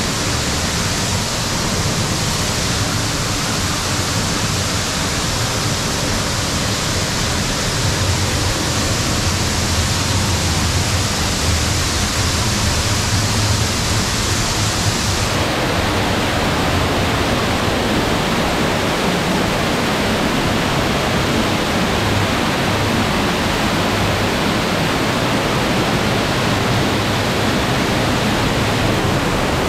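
Waterfall pouring into a cave pool: a loud, steady rush of falling water. About halfway through, its high hiss drops away and the lower part of the rush comes up.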